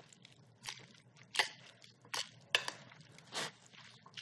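Salad being tossed with metal tongs in a glass bowl: soft shuffling of shredded spaghetti squash, broken by several light clicks and scrapes of the tongs against the glass.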